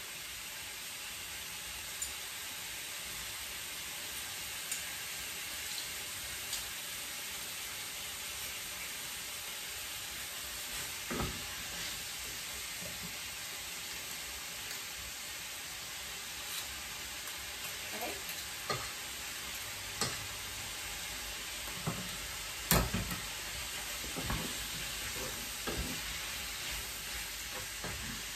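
Diced chicken breast, onions and garlic frying in hot olive oil in a large frying pan: a steady sizzle, with scattered knocks and scrapes of the utensil stirring the pan, the loudest knock about three-quarters of the way through.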